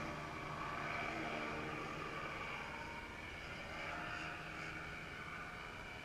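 Ultralight trike engine droning steadily and fading away into the distance after passing close.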